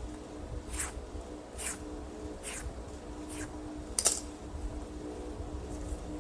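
Five short, high clinks of small hard objects, about a second apart, the last the loudest, over a steady low hum.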